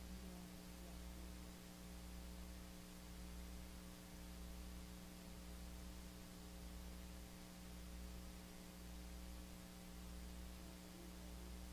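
Steady low electrical hum, mains hum with several tones stacked above it, over a faint hiss; no voices are heard.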